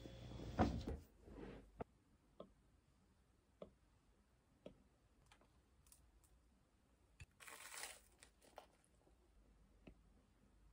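Quiet room with a soft thump near the start, then sparse light taps and handling noises at a desk, and a short rustle or crinkle about eight seconds in.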